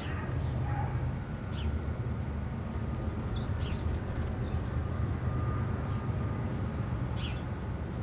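Steady low background rumble with a few faint, short bird chirps scattered through it.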